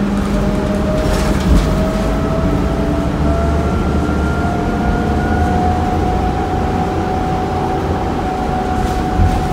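Interior ride sound of a New Flyer C40LFR bus with a Cummins Westport ISL-G natural-gas engine: a steady low rumble with a drivetrain whine that rises slowly in pitch as the bus gains speed. Brief clatters about a second and a half in and again near the end.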